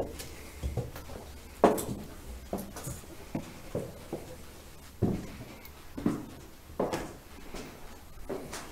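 Footsteps on a floor littered with debris, about one step a second at an uneven pace.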